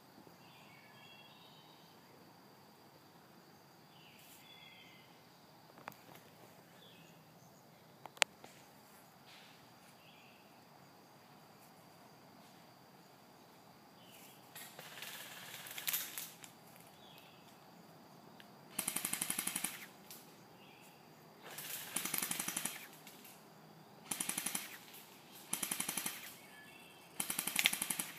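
Airsoft guns firing full-auto bursts: six rapid rattling bursts of about a second each, coming one after another through the second half. Before them, birds chirp faintly and there are a couple of single clicks.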